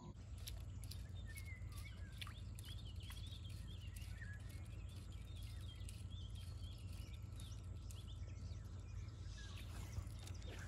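Birds chirping and singing in scattered short calls over a faint, steady low rumble.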